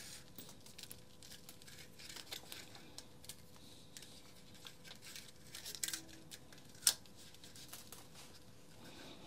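Faint rustling and scraping of 2 mm nylon trimmer line being pulled through the slots of a plastic trimmer spool and handled, with scattered light plastic clicks and one sharper click about two-thirds of the way through.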